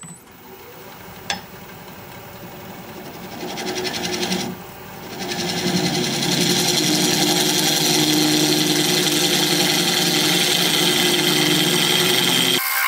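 Wood lathe running up to speed, then a negative rake scraper taking fine shavings off the inside of a hard, dense Red Mallee burl bowl: a steady machine whine with scraping, loudest from about halfway on, and the low part cuts out sharply near the end.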